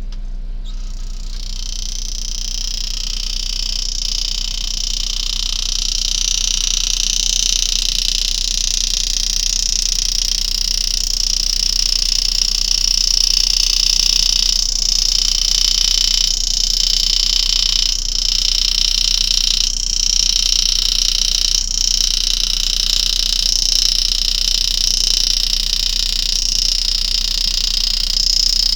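Powered engraving handpiece buzzing steadily at a high pitch while its graver cuts spirals into a coin, coming in about a second in, with a few faint clicks later on over a constant low electrical hum.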